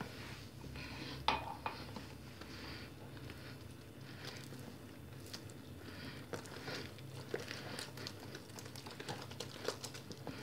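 A hand mixing flour into wet yeast dough in a bowl: soft, irregular squishing and rubbing as flour lumps are squeezed and pressed into the liquid, with a light knock against the bowl about a second in.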